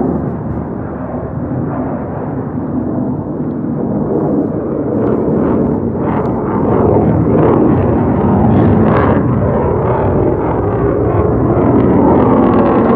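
Jet noise from an F-35 fighter's F135 turbofan flying past: a steady rushing noise with a ragged crackle that grows louder from about six seconds in.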